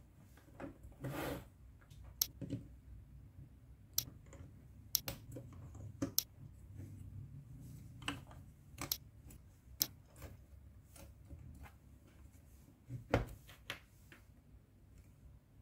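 Plastic Mathlink snap cubes clicking as they are pushed together, pulled apart and set down on a table: scattered sharp clicks, with a short rustle about a second in and a louder click near the end.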